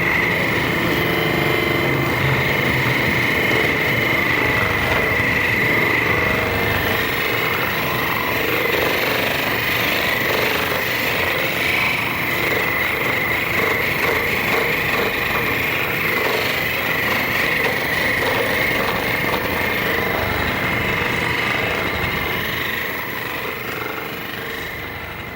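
Handheld electric percussion massager running steadily against the patient's back, a rapid hammering with a constant motor whine, easing off in the last few seconds.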